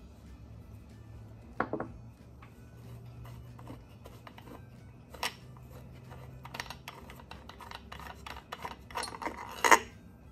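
Metal clinks, knocks and scraping as a side valve cover plate and its bolts are handled and worked loose on a Dodge T245-A flathead engine block. There is a single clink about a second and a half in and another near five seconds, then a busier run of scrapes and knocks that ends in the loudest knock near the end.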